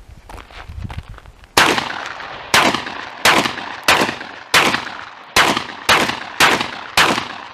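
Panzer AR-12 semi-automatic 12-gauge shotgun fired rapidly, nine shots about two-thirds of a second apart, each blast followed by a short echoing tail.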